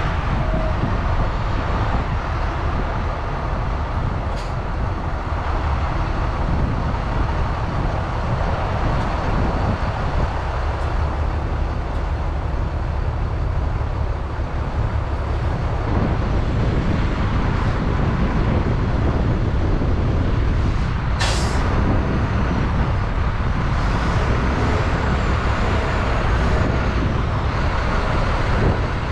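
Diesel engines of a salt-spreader dump truck and a wheel loader running steadily as the truck moves into place and the loader comes up to load it with salt. A short, sharp hiss of air sounds about two-thirds of the way through.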